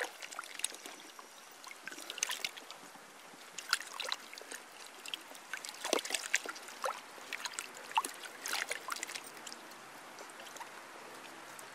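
A hosta's root clump being swished and rinsed in a bucket of water to wash the soil off: faint, irregular splashing and trickling.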